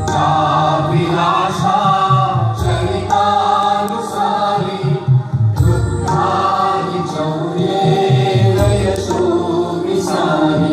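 Devotional music in which a group of voices sings a chant-like song over a steady accompaniment.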